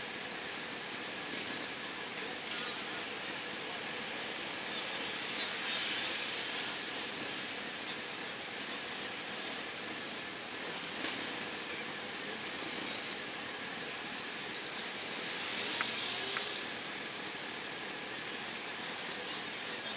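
Motorcycles idling in a queue, heard as a steady, muffled hiss, swelling briefly twice, about six seconds in and again near the end.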